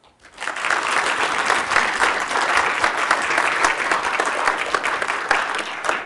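Audience applauding, many hands clapping together; it swells up a moment in and keeps up steadily.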